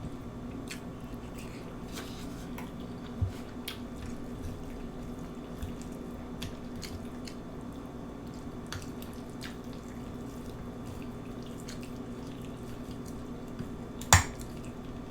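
Eating sounds: scattered soft wet clicks and smacks of a mouth chewing, over a steady low hum. There is a sharper, louder click about three seconds in and another, the loudest, about a second before the end.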